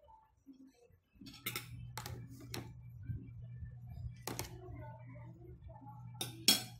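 A metal spoon clicking and clinking against a plate during a meal, about six sharp clicks, the loudest near the end, over a low steady hum.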